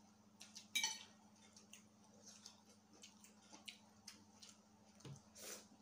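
Quiet eating sounds: scattered small clicks and crackles of food being picked apart by hand and with a spoon, with one sharper, ringing clink of a spoon on a dish about a second in.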